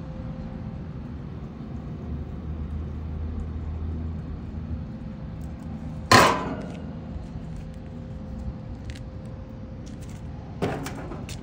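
Two sharp metal clangs, a loud ringing one about six seconds in and a quieter one near the end, over a steady low hum.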